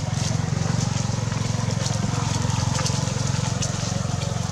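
A small engine running steadily, with a fast, even low pulse, and a few faint ticks over it.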